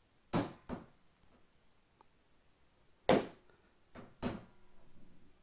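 Silicone tool tray handled on a car's painted hood: a few short thumps, two close together near the start and three more about three to four seconds in.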